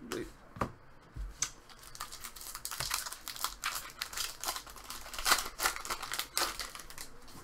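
A foil trading-card pack wrapper being opened and crinkled by hand: a dense run of crackling that starts about a second and a half in, after a few light clicks.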